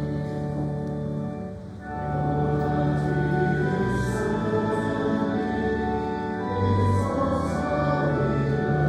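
A hymn being sung to long, held chords, with a brief dip in the music about two seconds in.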